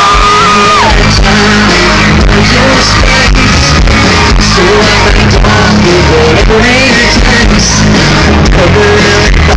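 Live country band playing loud, with a steady drum beat, bass and electric guitar; a sliding guitar line fades out about a second in.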